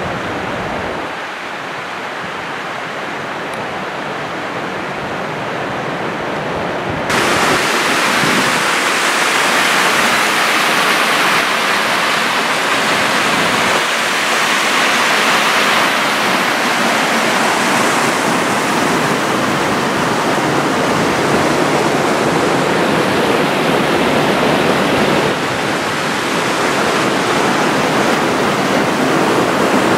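River water rushing over rocks in a small rapid: a steady, continuous rush that gets louder and brighter about seven seconds in.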